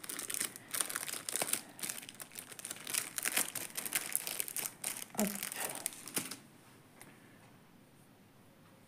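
Thin clear plastic packaging crinkling as it is handled, a rapid run of small crackles that stops about six seconds in.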